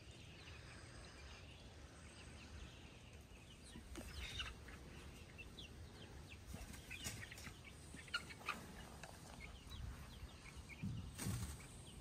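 Young broiler chickens in chicken tractors peeping and clucking faintly, scattered short calls that pick up a few seconds in, over a low steady rumble. A brief louder rustle comes near the end.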